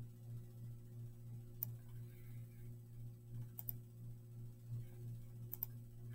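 Computer clicks from selecting on-screen buttons: one sharp click, then two quick double clicks about two seconds apart, over a low steady hum.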